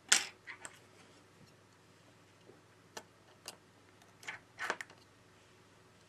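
Scattered small clicks and taps from handling an opened smartphone on a bench: fingers and tweezers on its frame and board, and the phone being shifted around. The sharpest click comes right at the start, with a short cluster of clicks about four and a half seconds in.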